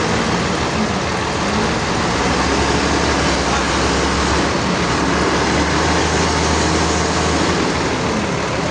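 Heavy sawmill machinery running steadily, with a deeper hum that comes in about two seconds in and drops away near the end.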